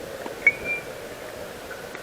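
A single sharp metallic clink with a brief ringing tone, about half a second in, over steady outdoor background noise.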